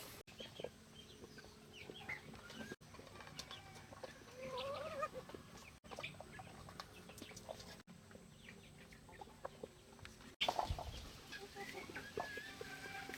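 Chickens clucking in short wavering calls, over scattered small clicks and rustling that grows louder near the end.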